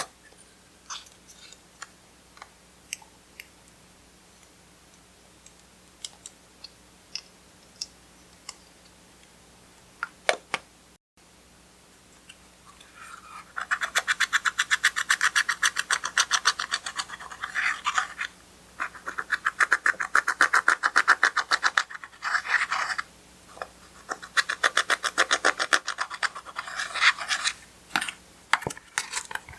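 Clear slime being squished and kneaded by hand while eyeshadow is mixed in, making sticky clicks and pops. Scattered single pops at first, then, after a short break, long runs of rapid crackling clicks in three stretches.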